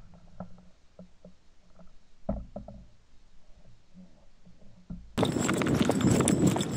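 A few faint clicks and a dull knock about two seconds in. Then, about five seconds in, a sudden loud rush of wind on the microphone with hurried footsteps crunching through dry field stubble.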